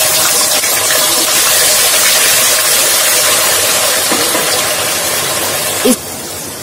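Onion purée sizzling hard as it hits hot oil in a kadhai, a loud steady hiss that eases off about six seconds in as the purée begins to fry.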